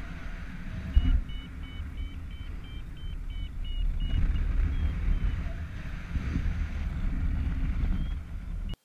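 Wind buffeting the microphone of a GoPro on a paraglider in flight, a heavy low rumble with a sharp gust about a second in. A flight variometer beeps rapidly for a few seconds from about a second in. The sound cuts off suddenly just before the end.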